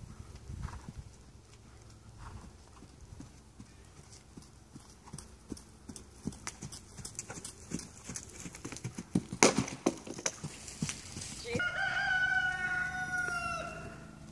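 Hoofbeats of a horse cantering on a sand arena, growing louder as it passes close and loudest about nine and a half seconds in. Near the end a single long call with a steady pitch lasts about two seconds.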